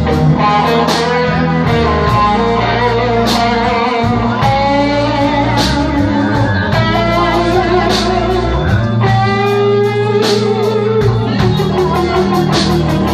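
Live blues band playing: an electric guitar leads with long held notes that bend in pitch, over bass and drums with cymbal strokes.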